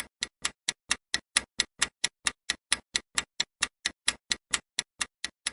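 Countdown-timer ticking sound effect: a steady run of sharp, even clicks, about four a second.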